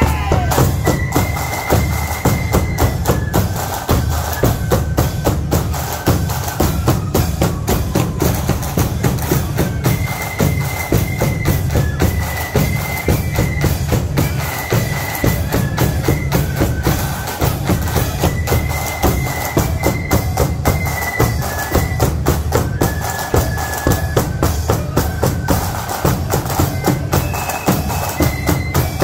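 Marching flute band playing: shrill flutes carry the melody over a dense, steady beat of big bass drums, snare drums and clashing cymbals.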